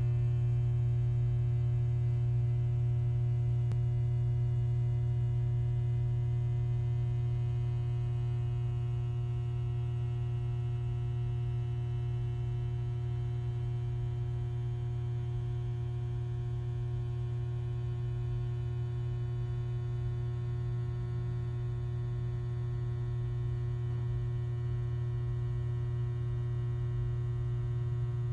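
A steady low hum with a fainter cluster of higher steady tones above it, unchanging throughout.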